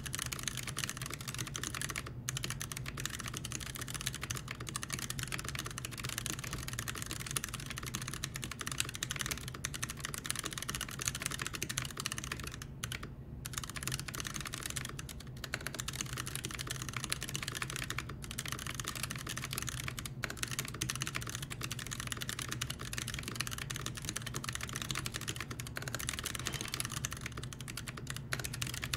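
Fast typing on a custom mechanical keyboard: a purple polycarbonate HBCP with a brass plate, stock Kailh Box Brown tactile switches and GMK keycaps. It is a rapid, continuous stream of key clacks with a few brief pauses, as in a typing speed test.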